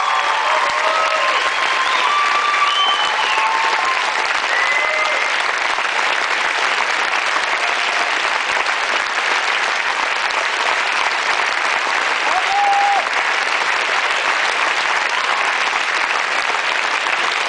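Theatre audience applauding steadily, with scattered whoops in the first few seconds and one more about two-thirds of the way through.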